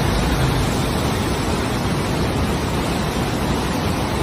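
Volcanic mudflow (lahar) of water, ash, sand and rocks rushing down a river channel: a loud, steady rushing noise with a heavy low rumble.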